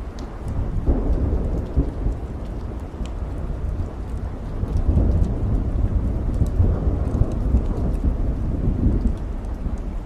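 Rolling thunder rumbling over steady rain. The rumble swells about half a second in, grows louder again in the middle and eases off near the end, with scattered light crackles of a wood fire.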